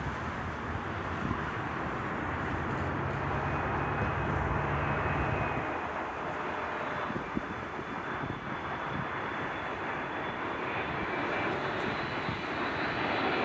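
Jet airliner engines on approach, heard as a steady rushing noise that slowly grows louder, with a faint high whine creeping in over the last few seconds.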